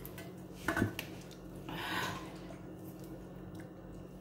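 Quiet table noises of a meal: fingers picking at crispy fried fish on a metal platter, with a short knock just under a second in and a brief scraping rustle around two seconds, over a low steady hum.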